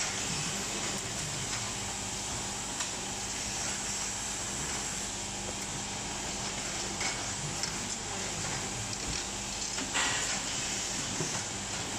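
Automatic insulin syringe assembly machine running, with a steady hum and hiss. A couple of short, sharper noises stand out about seven and ten seconds in.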